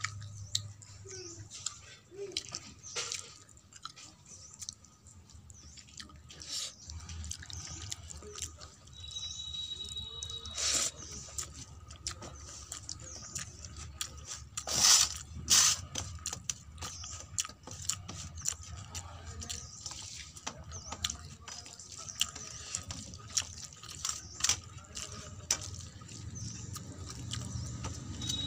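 Fingers mixing and scooping wet panta bhat (rice soaked in water) on a steel plate: a run of wet squelches, drips and sharp clicks of fingers and rice against the metal. The clicks are loudest in a cluster about halfway through.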